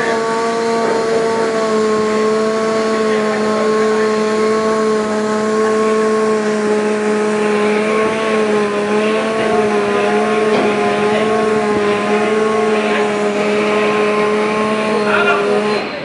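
Hoisting gear running with a steady, loud, fixed-pitch drone as the blast furnace distribution chute is moved into place. The drone starts abruptly and cuts off just before the end.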